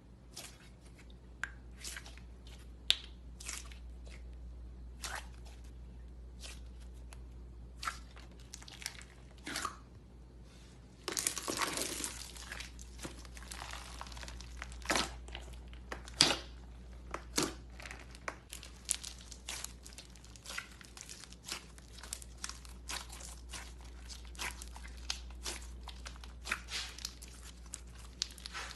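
Slime being squeezed and poked by hand, giving irregular crunchy crackles and pops, with a denser run of crackling about eleven seconds in.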